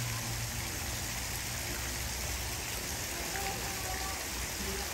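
Steady hiss of running water, even and unbroken, with faint distant voices.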